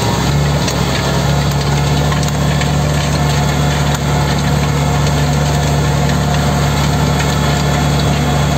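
Pronar tractor's diesel engine running at a steady pace while pulling a seed drill through ploughed ground, a constant loud hum.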